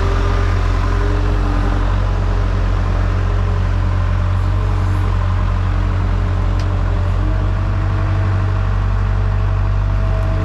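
A large engine running steadily at a constant speed, with no revving.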